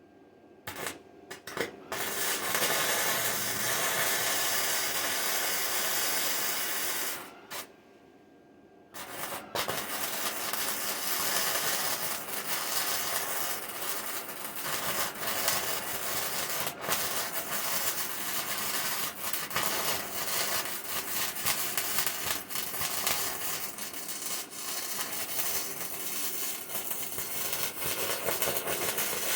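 Arc welder welding the torn steel seam of a tractor loader bucket, with a steady crackling arc. A run of about five seconds, a pause of about two seconds, then one long unbroken run.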